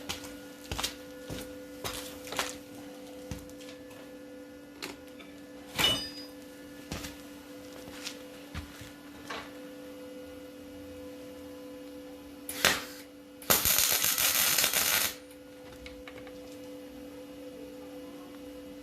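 Scattered clicks and knocks of metal parts being handled over a steady hum. Near the end comes about a second and a half of MIG welder arc crackle as a bolt is tack-welded in place.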